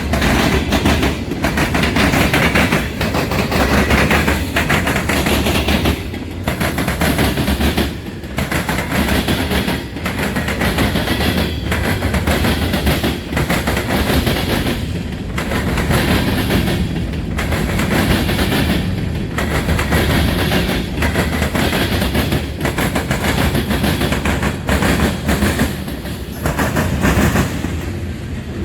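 Freight train's cars rolling past at close range, the wheels clacking over the rail joints in a steady repeating rhythm over a continuous rumble and rattle.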